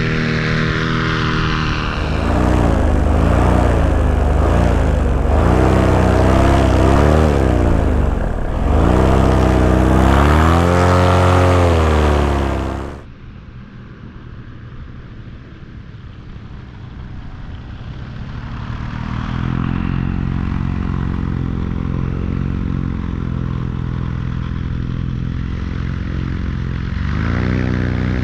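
Paramotor engine and propeller running, its pitch rising and falling with the throttle. About halfway through, the sound drops suddenly and is much quieter, then the engine builds back to a steady drone.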